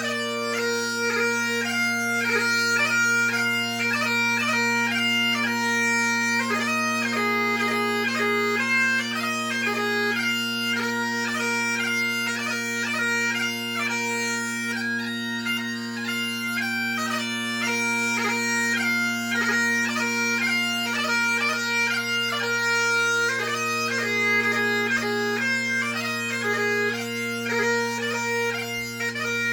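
Solo Great Highland bagpipe playing a competition march, strathspey and reel set: the steady drones sound beneath a fast chanter melody full of quick gracenote ornaments.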